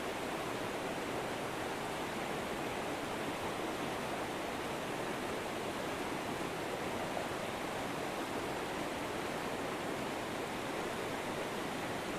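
River water flowing, a steady even rush of current with no breaks.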